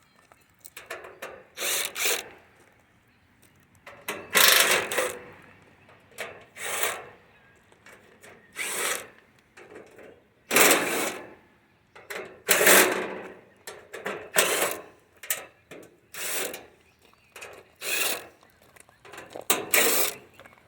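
A cordless drill/driver with a 5/16 nut-driver bit backing screws out of an air conditioner's sheet-metal lid, in about a dozen short bursts one to two seconds apart.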